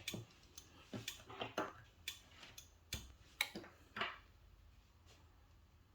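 Small clicks and knocks, some with a short scrape, from hands working the parts of a Uniphos 500DT gas detector head while fitting its sensor; they stop about four seconds in.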